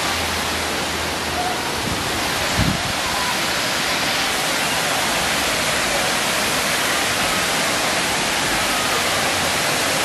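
Waterfall's falling water rushing in a steady, even wash of noise, with one soft low thump about two and a half seconds in.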